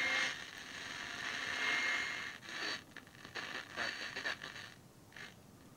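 Static and hiss from a small superheterodyne AM medium-wave transistor radio's loudspeaker as it is tuned to a station, swelling and fading in patches and dying away near the end.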